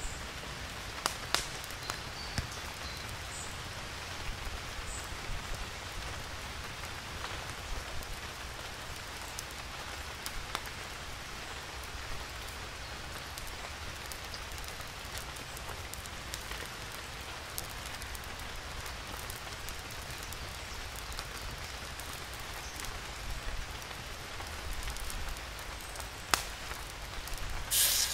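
Steady rain falling, with scattered sharp pops from the crackling wood fire. Right at the end, a tomahawk steak starts to sizzle as it is laid in the hot cast iron skillet.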